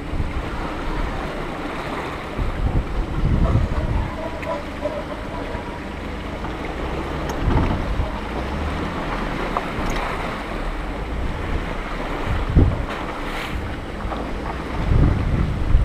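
Wind buffeting the microphone in irregular low gusts, over the low, steady running of an off-road vehicle crawling along a muddy, water-filled trail.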